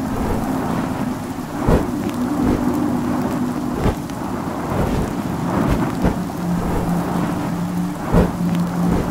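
Steady heavy rain with thunder, with sharper cracks or drips standing out about two seconds in, about four seconds in and near the end. A faint low held tone sits underneath and drops in pitch about two-thirds of the way through.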